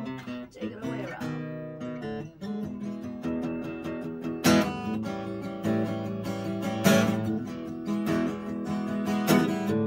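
Acoustic guitar strummed in an instrumental break of a song, with a few harder accented strums standing out, the loudest about seven seconds in.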